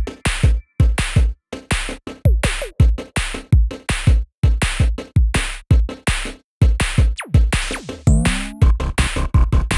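Electronic background music with a fast, steady drum-machine beat.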